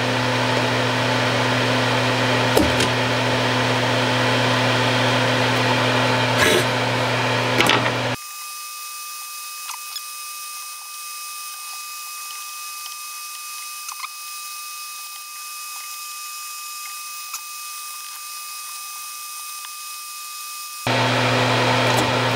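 Solder fume extractor fan running steadily with a low hum, with a few small clicks of tools on the amplifier chassis. About eight seconds in the sound drops and turns thin, its low hum gone, and it comes back full shortly before the end.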